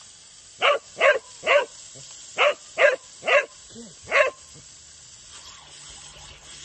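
Cocker spaniel barking at a garden sprinkler's water jet: seven short barks, two quick runs of three and then a single one about four seconds in.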